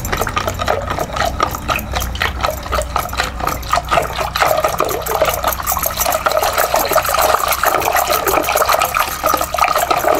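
Wooden churning stick (ravi) twirled back and forth between the palms in a pot of mango pulp (aamras), giving a fast, continuous sloshing and splashing as sugar is beaten in until it dissolves.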